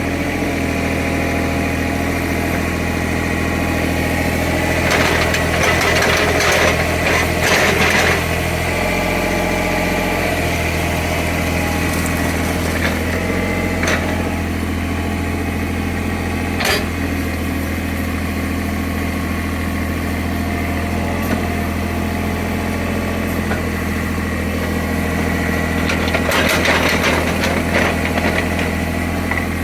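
Small CAT excavator's diesel engine running steadily, with two louder spells of noisy scraping and clatter as it works (a few seconds in and near the end), and a couple of sharp knocks in between.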